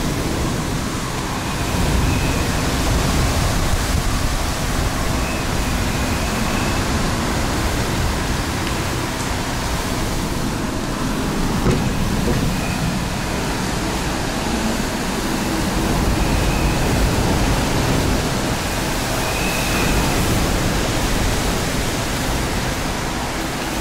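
Hurricane wind and driving rain: a loud, steady rushing that swells and eases in gusts.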